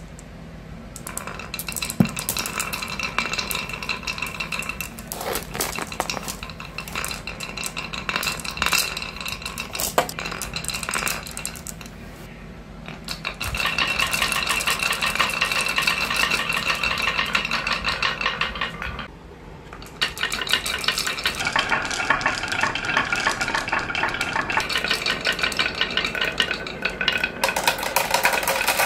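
Dozens of marbles rolling down carved wooden zigzag and wave marble-run slopes, clacking against the wood and against each other in a dense, ringing clatter. The clatter eases off briefly twice, about twelve and about nineteen seconds in, then picks up again.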